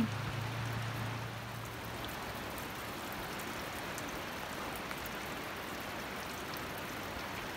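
Steady rush of flowing water, an even hiss without breaks. A faint low hum under it stops about two seconds in.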